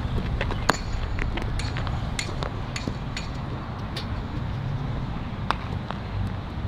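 Baseballs popping into leather gloves during infield throwing: a scattering of sharp pops at irregular intervals, some near and some fainter, the loudest about a second in and again near the end, over a steady low rumble.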